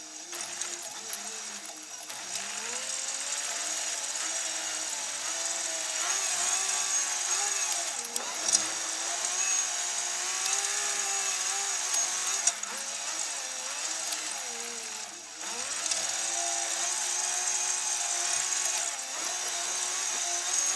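New Holland TM130 tractor's diesel engine running under load, its pitch rising and falling as the revs change, with a few sharp knocks.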